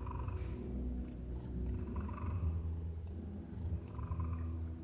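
Domestic cats purring in a steady low rumble, with three short meows about two seconds apart.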